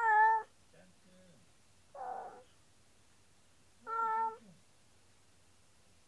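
A Siamese-type cat meowing three times, about two seconds apart. The first call is the loudest and the middle one is hoarser.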